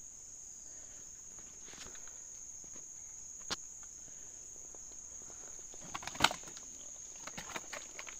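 Steady high-pitched drone of insects in the swamp forest, with a few sharp clicks and knocks, the loudest about six seconds in.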